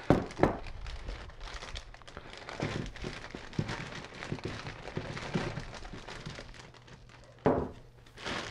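A plastic zip-top bag crinkles as baby potatoes are tipped into it from a bowl. The potatoes knock and tumble against each other in irregular clicks and rustles, with a sharp knock right at the start.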